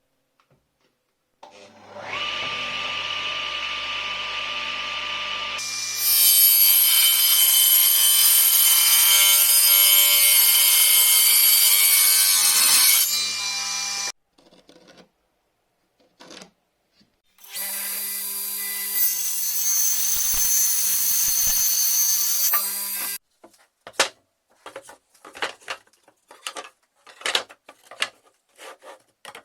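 Electric power saw cutting pallet wood in two runs: the motor starts, grows much louder about four seconds later as the blade works through the wood, and stops; a second, shorter run follows. Near the end come a series of light clicks and knocks.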